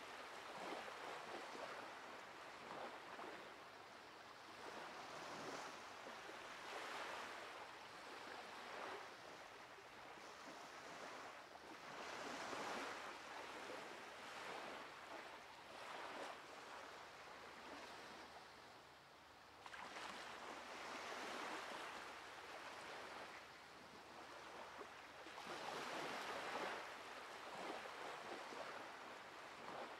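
Surf on a sandy shore: waves breaking and washing up the beach, the rush swelling and fading every five to seven seconds.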